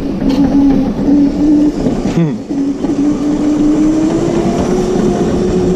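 Electric drive motor of a Razor Crazy Cart whining steadily as the cart rolls over a tile floor. The whine dips briefly about two seconds in, then slowly rises in pitch as the cart picks up speed.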